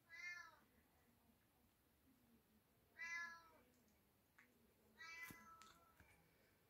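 Oriental kittens meowing: three short, high-pitched meows, near the start, about three seconds in and about five seconds in, the last a little longer.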